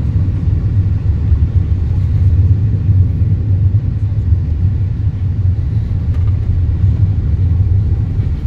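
Steady low rumble of a car's tyres and running gear on an unpaved dirt road, heard from inside the cabin.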